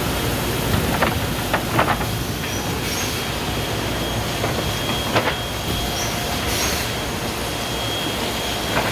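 Seedling-tray washing machine running: a steady mechanical din with a thin high whine that comes and goes, and a few sharp clacks, twice close together near two seconds, once about five seconds in and again near the end.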